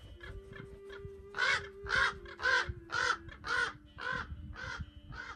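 A corvid gives a run of about eight loud calls, roughly two a second, starting about a second and a half in, with fainter calls before them. These are scolding calls from birds disturbed by a person close to their spot.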